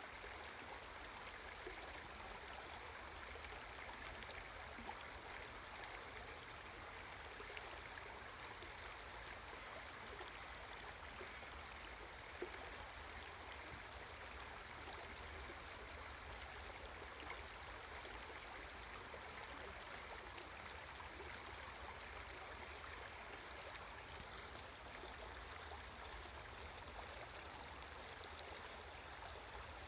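Shallow rocky stream flowing over stones: a steady, even rush of water, faint at the microphone.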